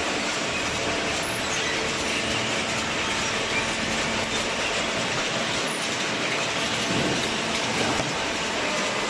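Machinery running steadily: a dense, even mechanical noise with a faint hum.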